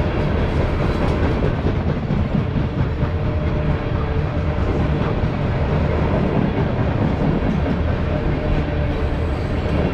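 Coal train's steel-wheeled coal gondolas rolling past: a steady rumble and rattle of wheels on the rails.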